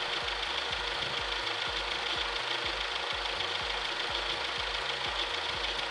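Mitsubishi Adventure engine idling steadily with the radiator cap off. It is running to burp air out of the freshly refilled cooling system while the thermostat opens and the radiator takes in more coolant.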